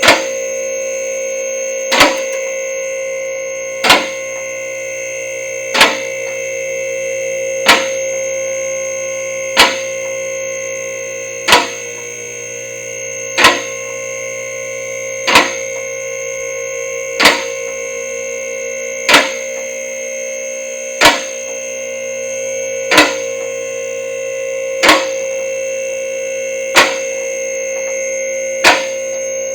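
Car lift's electric-hydraulic pump motor running steadily with a whine, as the safety locks click roughly every two seconds while the lift raises the car.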